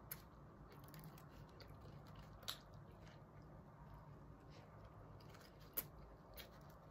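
Near silence with the faint sounds of a person eating a burger: soft chewing and a few small mouth clicks.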